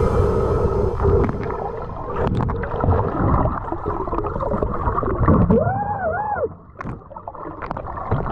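Muffled underwater sound from a camera submerged in a river: gurgling and bubbling water with scattered clicks and knocks. Around six seconds in there are two short arching tones that rise and fall in pitch.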